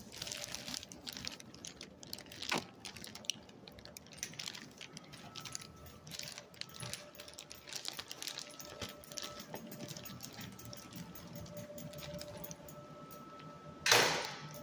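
A bunch of keys jangling with many small clicks, carried while walking. Near the end comes a louder, short burst of noise.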